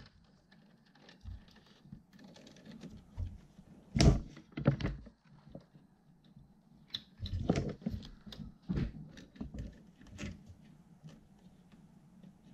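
Plastic fan connectors and cables being handled and pushed onto a motherboard fan header inside a PC case: scattered clicks and knocks, the loudest about four seconds in and several more between about seven and ten seconds, with small ticks between.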